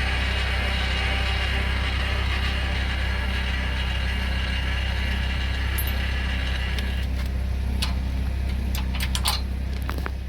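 Electric trailer tongue jack motor running over a truck engine idling steadily. The jack motor stops about seven seconds in, and several sharp metal clicks and knocks follow, as of the coupler being closed and latched.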